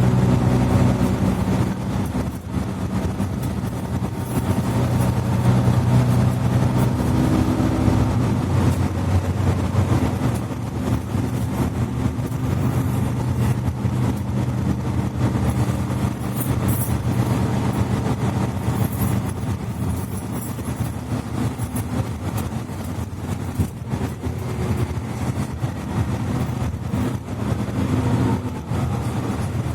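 Mercedes-Benz Citaro C2 articulated bus under way, heard inside the cabin: the diesel engine and Voith automatic transmission give a steady hum with road and body noise. The deepest rumble drops away about eight seconds in.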